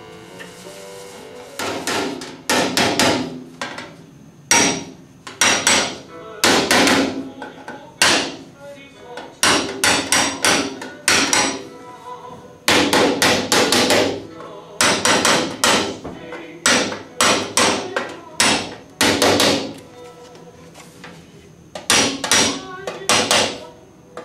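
Hammer blows on a steel chasing punch held against copper sheet, in quick runs of a few blows with short pauses, each blow ringing briefly.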